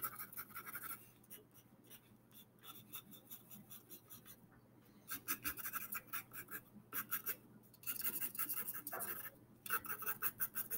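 Pencil scratching on paper in quick, short back-and-forth strokes, sketching fur lines, in several bursts with brief pauses between them.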